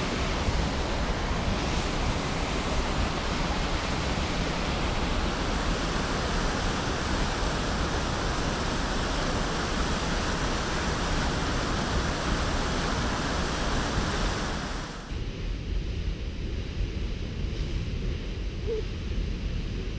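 A waterfall and the creek rapids below it rushing, a loud, even wash of water noise. About three-quarters of the way through it cuts off suddenly, leaving only a low rumble.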